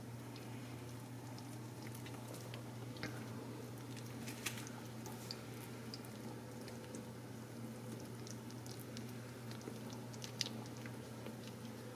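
Very young Ragdoll kittens' claws scratching and clicking softly on a textured mesh mat as they crawl and paw at it. There are scattered small ticks, two sharper ones about four and a half and ten seconds in, over a steady low hum.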